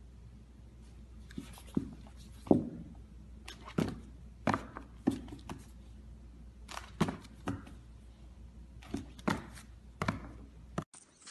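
A golden retriever puppy knocking about on a hard floor: about a dozen sharp, irregular thunks and taps over a faint low hum.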